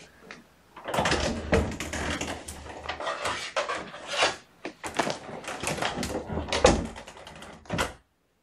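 Irregular clattering and knocking with rustling, dense and fairly loud, stopping abruptly about eight seconds in.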